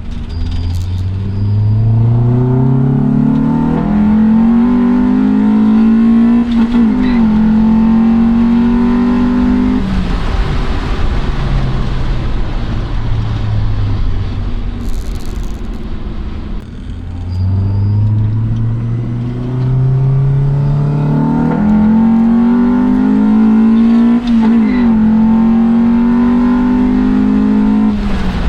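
Honda B20 VTEC four-cylinder engine pulling hard under acceleration, its pitch climbing high with brief breaks at the gear changes. About ten seconds in it eases off and runs lower, then makes a second hard climb about seventeen seconds in.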